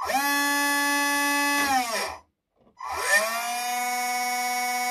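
An RC truck's electric drive motor and gearbox whining at speed with no engine sound from the module. It spins up, winds down and stops about two seconds in, then spins up again and runs steadily at a slightly lower pitch. This is the ESC giving the motor more speed in one direction than the other.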